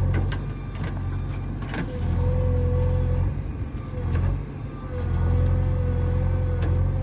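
JCB 3DX backhoe loader's diesel engine running, its level dropping twice and coming back up, with a steady high whine that comes and goes along with it. A few short, sharp knocks are heard.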